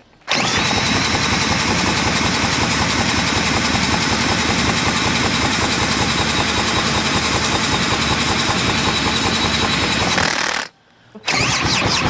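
A cordless drill spins the Atco Standard lawn mower's Villiers engine over by its flywheel nut, making a steady fast churn of drill motor and turning engine. It runs for about ten seconds, stops briefly, then starts spinning again near the end. The engine turns over without catching, and the owner blames a fault with the carburettor.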